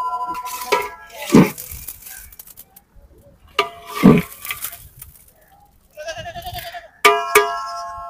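A long metal ladle knocks and clanks against large aluminium cooking pots. A ringing metallic clang fades at the start, another rings out about seven seconds in, and duller knocks come at about one and a half and four seconds. A short wavering, bleat-like call is heard about six seconds in.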